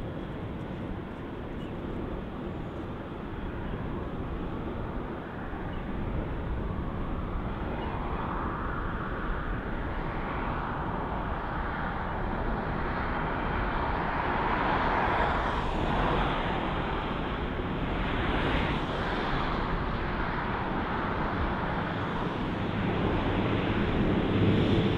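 Canadian Pacific freight train's diesel locomotives working up the grade, heard from a distance as a steady engine drone mixed with the noise of the rolling train. It grows louder through the middle, and the engines' low drone is strongest near the end.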